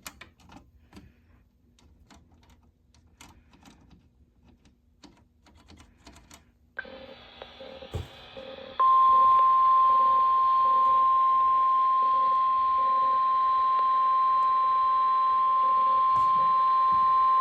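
NOAA Weather Radio 1050 Hz warning alarm tone played over a weather radio receiver as part of a required weekly test. It is one steady, loud, high tone starting about nine seconds in and lasting about nine seconds. Shortly before it the radio's hiss comes up.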